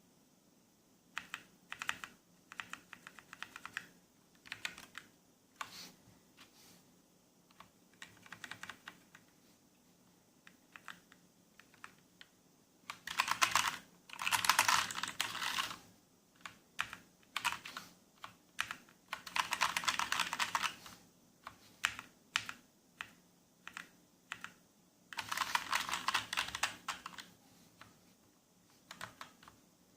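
Typing on a Motospeed CK104 mechanical keyboard with linear red switches: scattered keystrokes at first, then three runs of fast, continuous typing in the second half.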